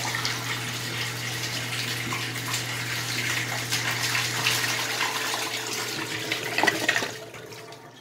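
Homemade miniature toilet flushing: water rushing and swirling through the small bowl, carrying wads of paper towel down. A few louder splashes come near the end, then the rush dies away.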